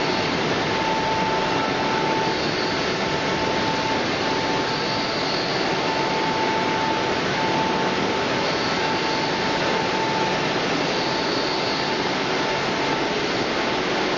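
French fry production line machinery running: a steady, even mechanical noise with a high steady whine through it that drops out briefly a few times.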